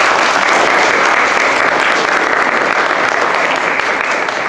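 Audience applauding, a steady loud clapping that starts to fade near the end.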